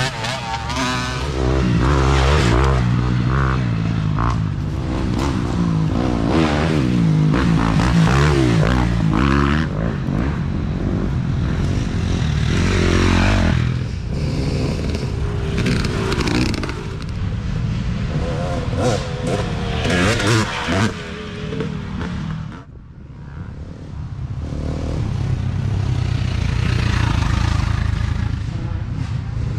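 Dirt bike engines revving and accelerating as several riders pass one after another, the pitch rising and falling with the throttle and gear changes. There is a brief lull a little past two-thirds of the way through.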